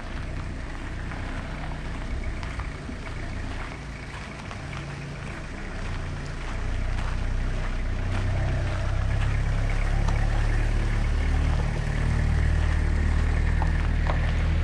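A pickup truck's engine running as the truck approaches over gravel, growing louder from about halfway through.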